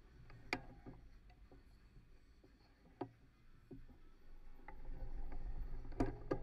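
Stricker Lupo handbike on paving tiles: a few sharp clicks and knocks, then a low rumble that builds from about two-thirds through as the bike starts rolling forward.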